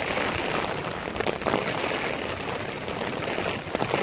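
Heavy typhoon rain hissing steadily, with a few sharper taps about a second in and near the end.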